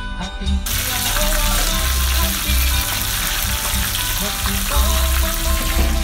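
Whole scored flounder frying in hot oil in a steel pan: a steady, dense sizzle that cuts in suddenly about half a second in, over light background music.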